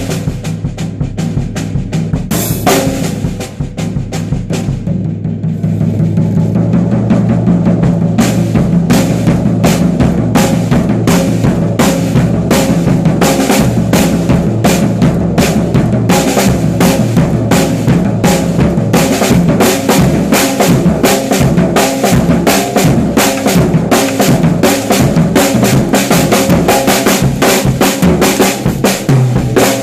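Music led by a drum kit playing a steady beat of kick and snare, with cymbals. The high end drops away briefly early on, and the full beat comes back a few seconds in.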